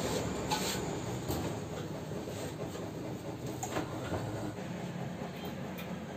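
Paint shaker machine running with a can of freshly tinted paint clamped in it, mixing paint and tint: a steady mechanical rattle with a few light knocks. It gets quieter over the first couple of seconds, then holds steady.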